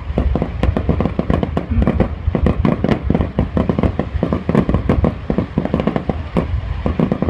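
Fireworks display: aerial shells launching and bursting in quick succession, a dense, unbroken run of booms and cracks several a second over a low rumble.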